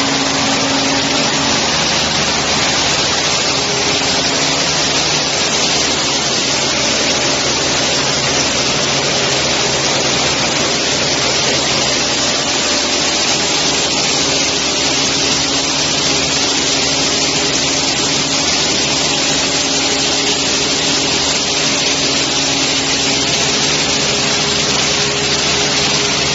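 Machinery of a biodegradable-plastic (PLA/PBAT-starch) pelletizing line running steadily: a loud, even hiss with faint steady hums underneath.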